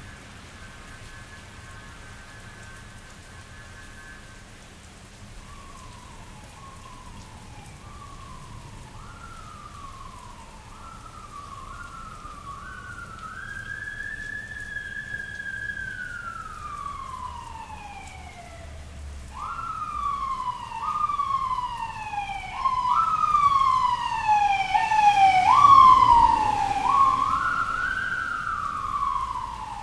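Steady rain falling, with an emergency vehicle's siren coming in a few seconds in and drawing closer: quick repeated rising-and-falling sweeps, one long slow wail in the middle, then quick sweeps again, getting louder to a peak near the end.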